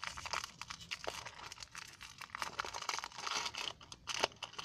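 Lollipop wrapper crinkling and tearing as it is worked open by hand, in irregular crackles, with one sharper crack about four seconds in.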